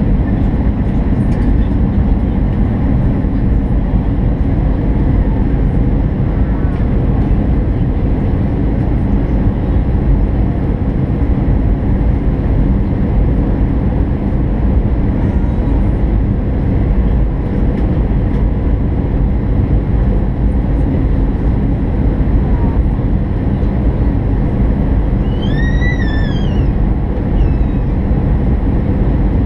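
Steady, loud cabin noise of an Airbus A319 on descent: the low rumble of the engines and the rush of air past the fuselage, heard from a window seat over the wing. A brief rising-and-falling tone sounds near the end.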